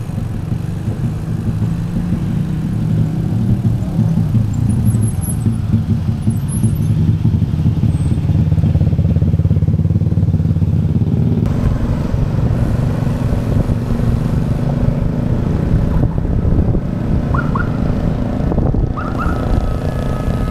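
Motorcycle and car traffic, engines running close by as a bicycle moves among them, a steady low sound throughout.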